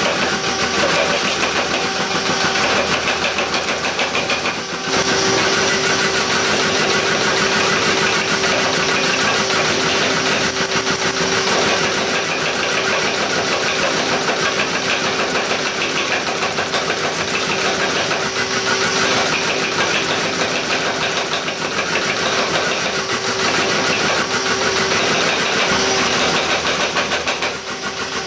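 A machine running loudly and steadily, with a fast, even pulsing and a steady hum. It breaks off briefly about five seconds in.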